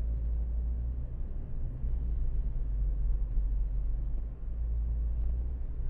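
Steady low road rumble and tyre noise inside the cabin of a 2012 Ford Focus being driven.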